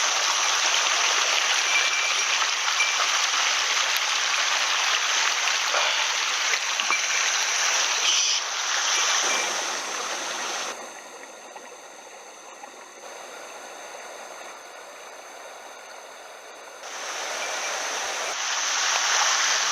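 Steady rush of running water in a small mountain headwater stream. About eleven seconds in, it drops much quieter for some six seconds, then returns to full level.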